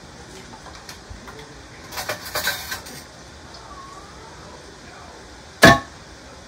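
A metal spoon clattering and clinking in a bowl while mixing, with a short run of rattling clinks about two seconds in and one sharp, loud clack near the end.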